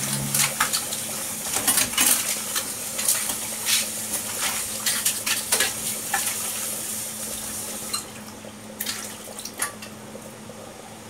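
Clinks and knocks of pots, dishes and utensils being handled, many sharp clicks, over a steady hiss; the hiss and the clinking thin out about eight seconds in.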